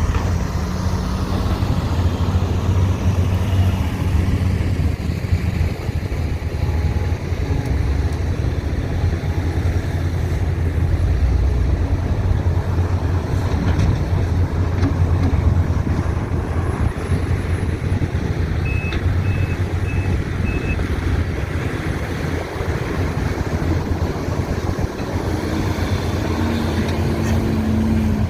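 Diesel engines of an excavator and dump trucks running steadily under work, a deep drone throughout. About two-thirds of the way in, a backup alarm beeps four times.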